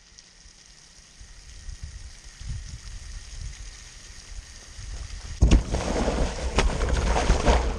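Low wind rumble on the microphone, then about five seconds in a Victoria skimboard lands with a sudden slap on a wet plastic slip-and-slide sheet and skids toward the camera, water spraying and hissing with scattered splashes and clicks.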